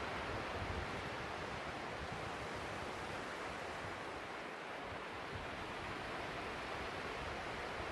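Steady wash of sea surf on a sandy beach, with gusty wind rumbling on the microphone.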